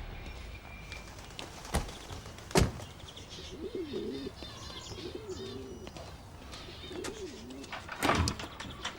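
Pigeons cooing three times in low, rising-and-falling phrases, with small birds chirping higher above them. A few sharp knocks come between the calls, the loudest about two and a half seconds in.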